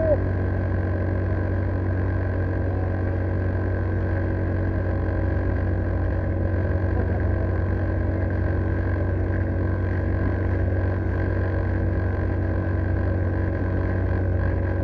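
A 40 hp outboard motor running steadily at speed, pushing a small open boat through the water. It makes an even, unchanging engine note with several steady tones above it.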